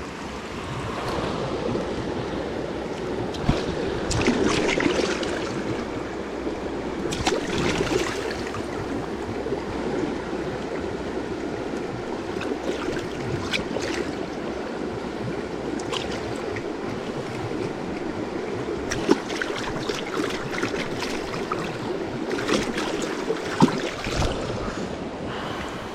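Steady rush of flowing stream water with wind buffeting the microphone, broken by a few sharp clicks and knocks.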